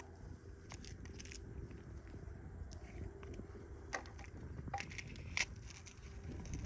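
Faint handling noise as a battery pack and its plug connectors are fitted onto a foam-board holder: scattered small clicks, crackles and scrapes, the sharpest about four and five and a half seconds in, over a steady low rumble.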